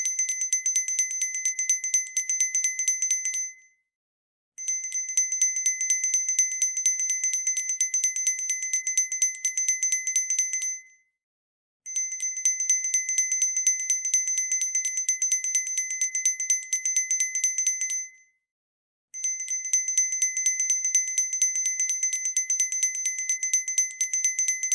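A small brass hand bell shaken so the clapper strikes rapidly, giving a continuous high, bright ringing. It rings in runs of about six seconds, stopping for about a second three times.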